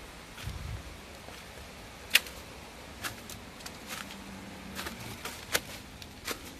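Footsteps of a person walking: a string of sharp, irregular steps over a steady outdoor hiss. A brief low rumble comes about half a second in.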